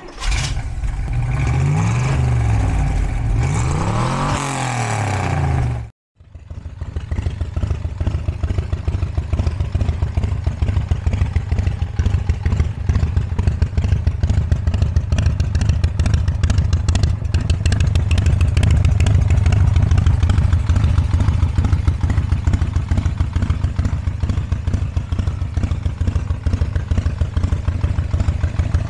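Custom chopper's Harley-Davidson Evolution V-twin, bored out to 1600 cc and fitted with a flap exhaust, revved twice with the pitch rising and falling, then after a brief cut about six seconds in, idling steadily.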